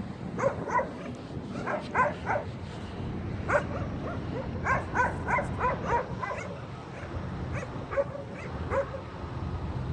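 A dog barking and yipping in many short calls, coming in quick clusters of two to four, over a steady low rumble.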